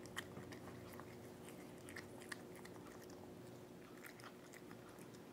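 A cat crunching dry kibble from a bowl: faint, irregular crunches.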